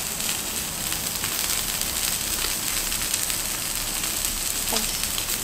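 Beef rump steak sizzling on a hot iron griddle plate: a steady frying hiss with scattered small crackles and pops.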